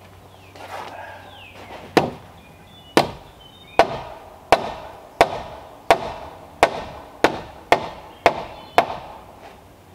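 Hammer blows on a log timber frame: about eleven sharp knocks starting a couple of seconds in, each with a brief ring, coming faster toward the end.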